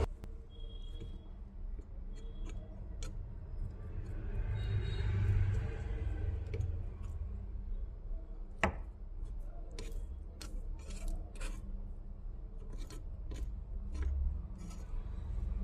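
Hand-tool work: a run of sharp clicks and light scraping over a low steady hum, with one louder knock about nine seconds in.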